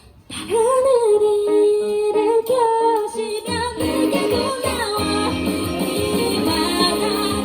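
Pop song: after a brief break, a lone wavering melody line, sung or vocal-like, comes in. About three and a half seconds in, the full backing with bass joins.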